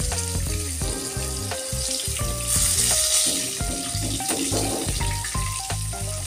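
Rohu fish pieces sizzling in hot mustard oil in a kadhai as they are lifted out with a metal spatula, the sizzle rising briefly about two and a half seconds in. Background music plays underneath.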